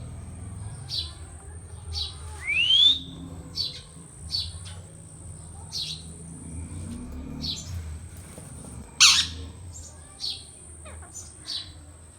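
Indian ringneck parakeet chirping in short calls about once a second. It gives a rising whistle about two and a half seconds in and a louder call about nine seconds in.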